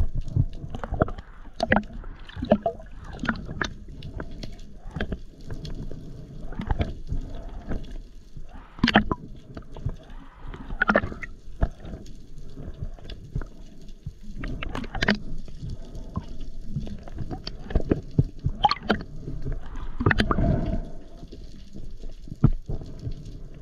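Water gurgling and sloshing around the camera, with irregular sharp clicks and knocks scattered throughout.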